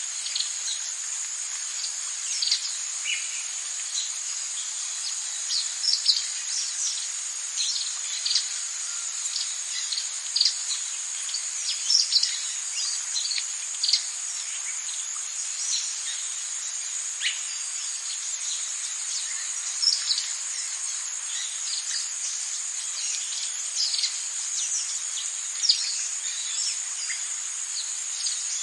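Tropical rainforest ambience: a steady high-pitched insect drone, with many short, quick bird chirps scattered all through it.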